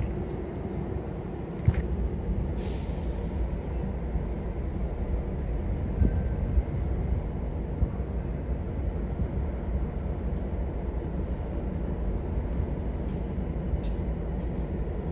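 Metra commuter train's diesel locomotive running with a steady low rumble, with a short hiss of air about two and a half seconds in and a few sharp clicks near the end.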